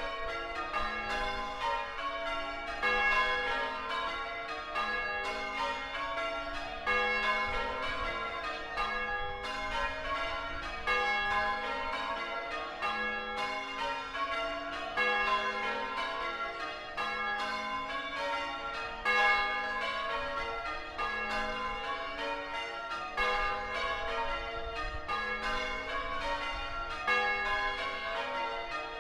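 Ring of six church bells, tenor about 8 cwt in A-flat, being rung in English change ringing: an even, unbroken stream of bell strikes in repeating rows.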